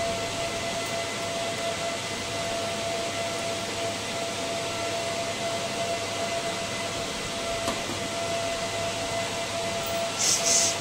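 Steady whir of cooling fans in a telecom equipment rack, with a thin steady whine running through it. Near the end come two short, bright rattling clicks.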